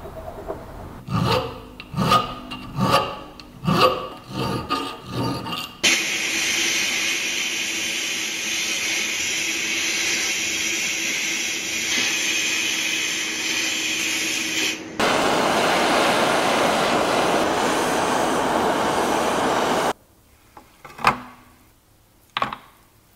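Several rhythmic scraping strokes, then a steady loud hiss of a sandblasting gun blasting a metal part inside a blast cabinet. The hiss changes tone about halfway through and cuts off suddenly. Then it is much quieter, with two short clicks near the end.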